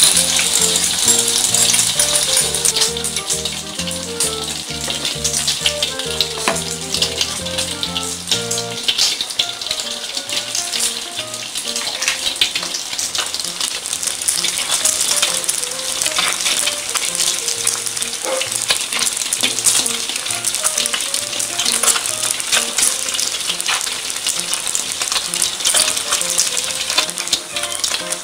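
Hot oil crackling and sizzling steadily as beaten egg fries in a wok, with background music playing over it.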